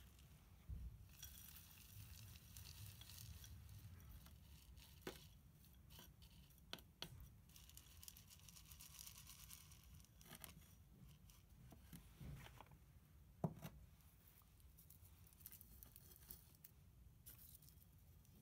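Faint gritty rustling and scraping of coarse granular potting mix being scooped by hand and poured into a small terracotta pot, with a few scattered light clicks of grains.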